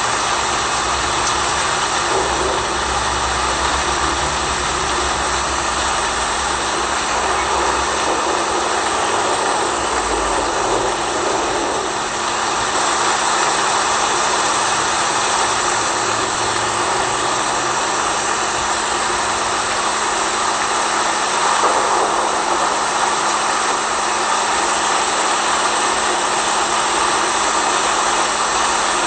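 Steady rain sound: a dense, even hiss with a constant low hum beneath it, and a low rumble that fades out about ten seconds in.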